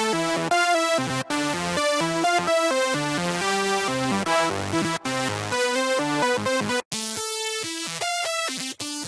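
Xfer Serum software synthesizer playing bass presets: a quick melodic run of short synth notes with buzzy overtones. It is broken by a few brief silences, and the tone turns brighter after the one about three-quarters of the way through.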